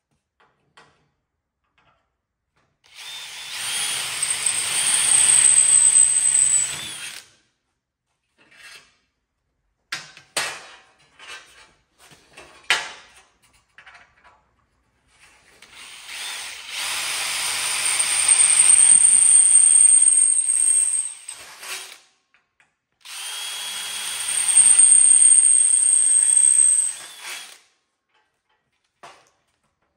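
DeWalt cordless drill boring spot-weld holes through sheet-steel windshield frame, in three runs of a few seconds each with a high whine. Between the runs come short clicks and taps of the tool and metal being handled.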